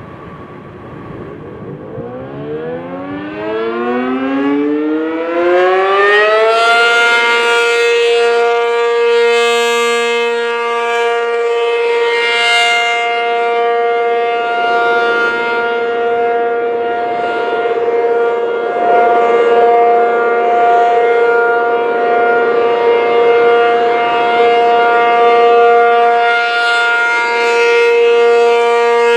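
ACA P-50 outdoor warning siren winding up, its pitch rising for about five seconds, then holding a steady tone: the alert signal.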